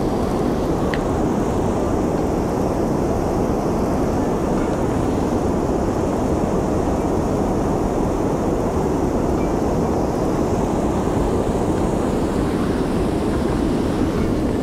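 Steady wind rumble on the microphone, mixed with the wash of river water around a small open boat.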